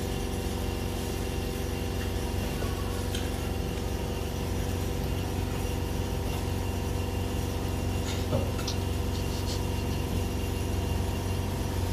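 Steady machine hum with several fixed tones, unchanging throughout, and a few light clicks about eight seconds in.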